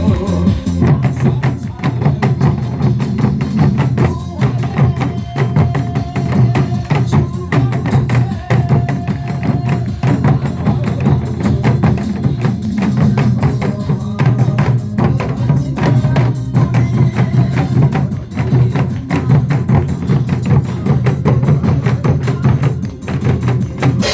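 Janggu (Korean hourglass drums) beaten in a fast, steady rhythm by a group of players over recorded backing music with a strong beat.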